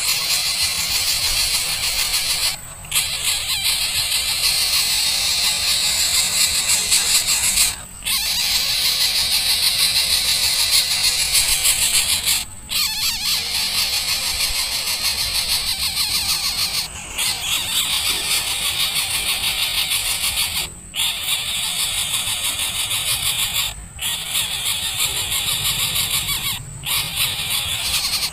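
A dense, steady chorus of high-pitched animal calls, broken by short gaps of silence every few seconds.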